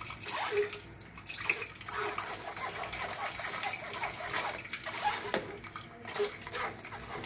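A steel spoon stirring and scraping blended falsa berry pulp around a stainless-steel mesh strainer, with wet squelching and juice trickling into the steel bowl beneath as the seeds are strained out. Irregular small clicks of the spoon against the mesh throughout.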